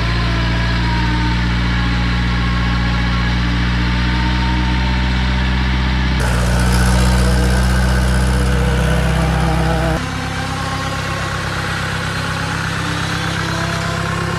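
Willys jeep engine running steadily, its tone shifting abruptly about six and ten seconds in.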